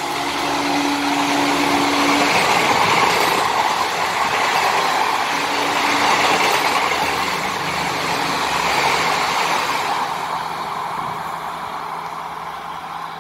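Passenger coaches of an express train rolling past at speed on the rails, a steady rush of wheel and rail noise that fades near the end as the train draws away.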